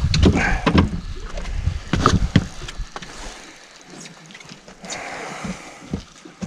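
Knocks and clatter in a small fishing boat, in a quick run over the first two and a half seconds, then softer noise with a few scattered clicks.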